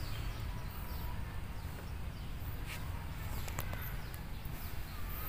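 Outdoor ambience: a steady low rumble with a few scattered light clicks and faint bird chirps.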